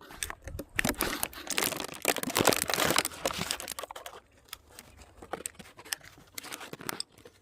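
Crinkling and crackling, dense for about the first four seconds, then thinning to scattered clicks.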